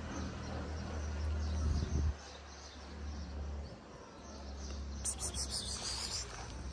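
Outdoor street ambience: a steady low hum that drops away suddenly about two seconds in, then a brief burst of high chirping about five seconds in.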